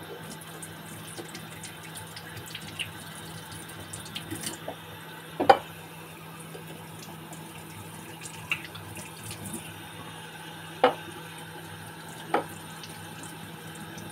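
Kitchen tap running steadily into a stainless steel sink while hands rub eggs clean under the stream, with a few sharp knocks as washed eggs are set down on a ceramic plate, the loudest about five and a half seconds in.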